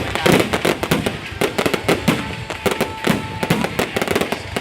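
Fireworks display: a dense, rapid crackle of many sharp bangs and pops, several a second with no let-up.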